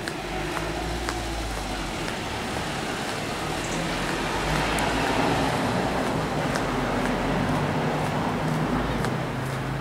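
Motor vehicle traffic on a cobbled street: a steady engine hum with tyre noise, swelling to its loudest about halfway through as a vehicle passes.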